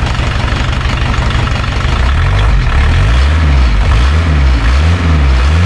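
Volkswagen T3 van's engine running, heard close at the tailpipe. About two seconds in, its note turns uneven, rising and falling in a steady rhythm roughly twice a second.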